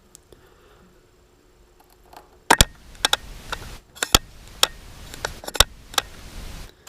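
Small metal clicks and scratching of a precision screwdriver driving a tiny screw into the iPhone 4S speaker enclosure. About a dozen sharp clicks with a scratchy rustle between them start about two and a half seconds in.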